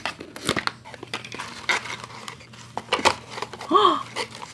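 Small cardboard gift box being opened by hand: a run of rustling, crinkling and tearing of paper packaging. Near the end comes a short vocal exclamation.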